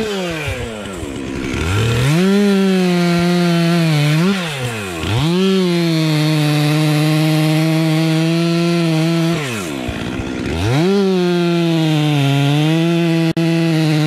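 Two-stroke chainsaw cutting into the base of a large tree trunk. The engine holds a steady high pitch at full throttle under load, falling back and revving up again several times between stretches of cutting.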